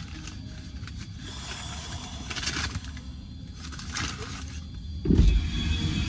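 Car interior: a few short rustling noises, then a loud low thump about five seconds in as the driver's door is opened.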